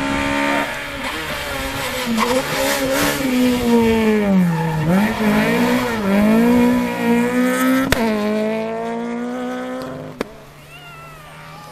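Peugeot 208 rally car's engine at high revs as the car approaches and passes at speed. Around halfway the engine note drops and climbs back twice, then it fades away near the end.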